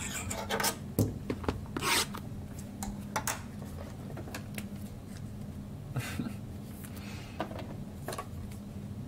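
Panini Prizm Premier League trading cards being slid and flipped through by hand: short, irregular swishes and rubs of card on card, over a steady low hum.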